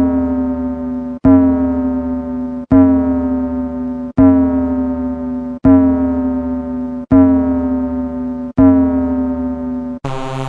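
Synthesized 'boom' ending sound effect: a deep hit with a steady ringing pitched tone, fading out, repeated about every one and a half seconds, six new hits in all. Near the end a different effect begins, its pitch rising.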